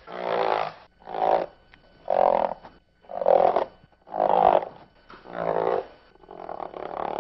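Chalk chattering against a blackboard as dotted lines are drawn: seven short buzzing bursts, about one a second, each stroke making the chalk skip across the board.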